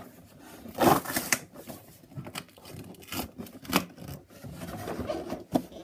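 Cardboard box of a toy track set being handled and opened: irregular rustling, scraping and knocks, loudest about a second in.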